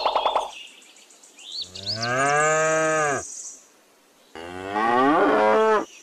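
Cow mooing twice, two long calls of about a second and a half each: the first begins about one and a half seconds in, the second about four and a half seconds in.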